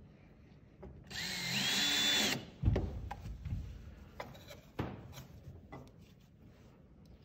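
Cordless drill/driver running for just over a second, its motor whine rising and then holding steady as it drives a screw into a floor cover plate. A thump follows, then several knocks and clicks.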